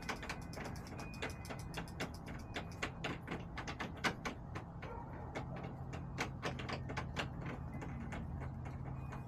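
Chickens pecking at a hard surface close to the microphone: rapid, irregular sharp taps, several a second, thinning out about halfway through, over a low steady hum.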